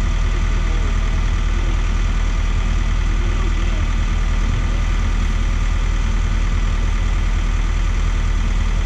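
Heavy engines of a concrete mixer truck and a Schwing trailer concrete pump running steadily together, with a strong low hum, while concrete is fed into the pump's hopper.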